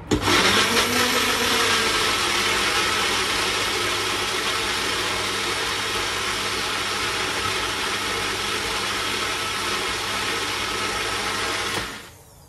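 Electric blender running, blending a thick banana, avocado and yogurt smoothie. It starts abruptly, runs steadily and is switched off about half a second before the end.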